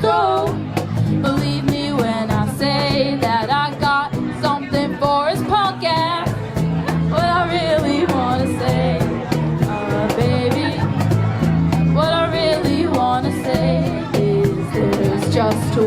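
A live rock band playing a song: a singer's voice over guitar and bass, with a steady drum beat.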